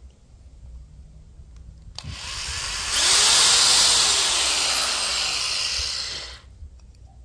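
Corded electric drill boring a pilot hole into a wooden block: it starts about two seconds in, runs loud for about four seconds with its pitch rising and then sagging, and stops suddenly.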